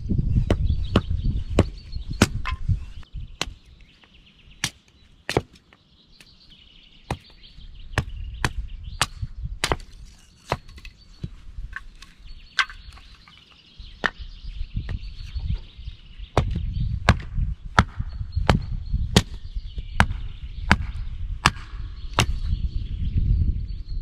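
Wood being chopped with a hatchet: a long run of sharp knocks, about one or two a second, with a short pause a few seconds in. Birds sing in the background.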